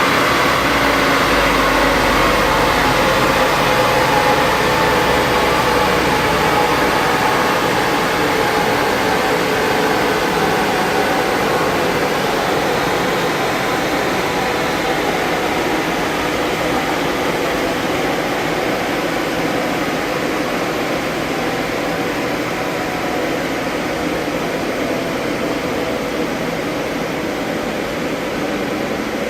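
Mk1 Vauxhall Cavalier running on a rolling road: engine and rollers under a steady rushing noise. The low rumble drops away about seven seconds in, and the whole sound slowly gets quieter.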